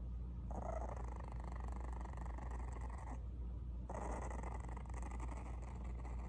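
Bulldog puppy growling: two long, rough growls, the second starting about four seconds in after a short pause.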